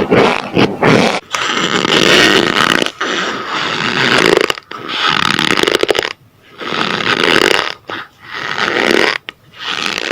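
Close-miked crunching of a brittle, gritty material, in about seven long crunches with short pauses between them.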